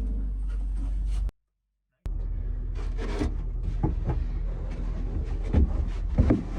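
Knocks, thumps and rubbing against the plywood of a camper shell as someone climbs in and moves about inside, over a steady low rumble. The sound drops out for a moment early on, and the loudest thumps come near the end.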